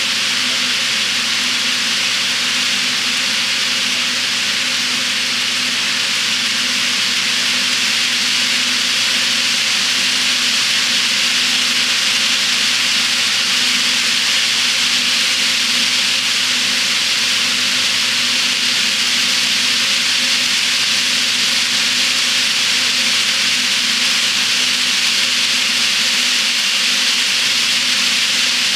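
Long HO scale model freight train with metal wheelsets rolling around a nickel silver track helix: a steady rushing hiss of many wheels on the rails, with a steady low hum underneath.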